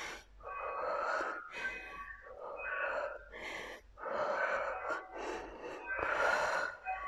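A woman breathing hard during exercise: short, forceful breaths, about one a second.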